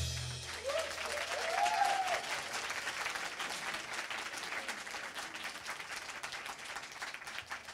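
Audience applauding steadily at the end of a live song, the clapping thinning out toward the end; the song's last bass note dies away at the very start, and a single voice calls out briefly about a second in.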